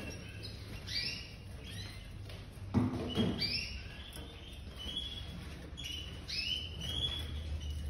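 Domestic canaries calling, a run of short arching chirps coming every half second or so. There is a soft knock about three seconds in.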